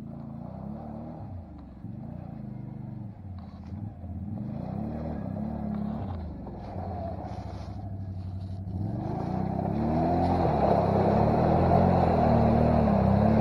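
ATV engine revving up and down in repeated surges as it works through deep mud, growing louder about nine seconds in as it comes close.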